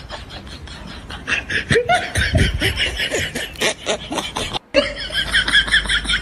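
Hearty laughter in quick repeated bursts, getting louder about a second in, broken by a brief silent gap at an edit a little past the middle.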